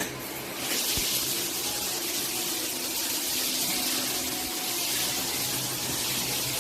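Water spraying from a shower head fed by an instant water heater: a steady hiss that swells about a second in and then holds.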